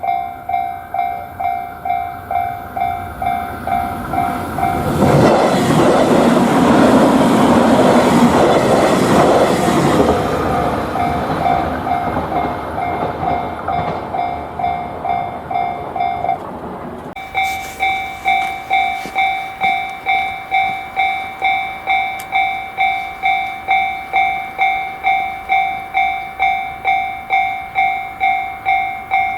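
Japanese railroad crossing warning bell ringing its steady 'kan-kan' beat, about two strikes a second. A train runs past from about five to ten seconds in, its wheel and running noise swelling over the bell and then fading. The bell breaks off briefly around sixteen seconds in and starts ringing again.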